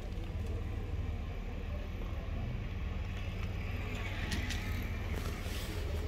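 Street ambience: a steady low traffic rumble, with a louder hiss and a few sharp clicks about four to five seconds in.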